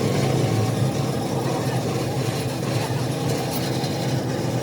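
A machine's motor or engine running steadily with a low, even hum.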